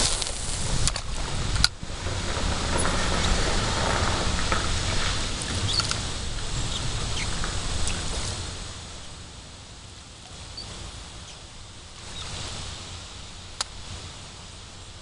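Fishing reel being cranked to bring a frog lure back across the water: a fine whirring, ticking patter. There is a sharp click about two seconds in. The cranking is loud for about six seconds, then fainter, with wind rumbling on the microphone.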